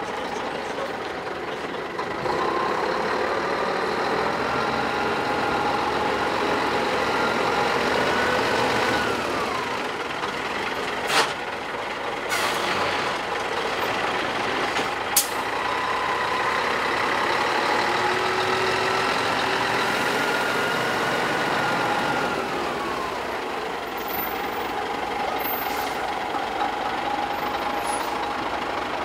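Scania tractor unit's diesel engine pulling the truck slowly around, its note rising and then falling twice as it is throttled up and eased off. Two short, sharp knocks cut through, a little over a third of the way in and again about halfway.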